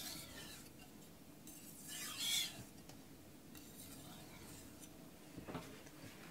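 Aogami carbon-steel knife blade sliding in light strokes across a wet Kitayama 8000 finishing whetstone: faint scraping, clearest in one hissy stroke about two seconds in. These are the finishing strokes with the pressure eased off.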